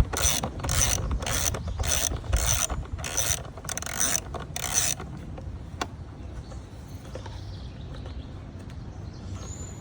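Ratcheting driver with a T25 Torx bit clicking back and forth, about two strokes a second, as an airbox screw is backed out. It stops about five seconds in; a single faint click follows.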